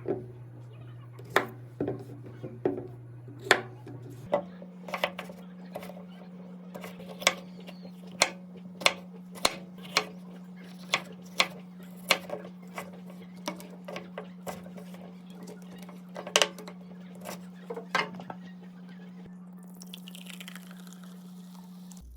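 Kitchen clatter: a string of sharp knocks and clinks of utensils against dishes and containers, roughly one or two a second. Beneath them runs a steady low hum that jumps to a higher pitch about four seconds in.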